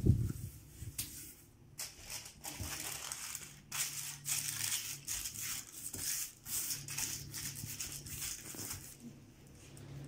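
Greaseproof baking paper crinkling and rustling as it is laid onto an oiled baking tray and pressed flat by hand, in an irregular run of rustles. A dull thump comes right at the start.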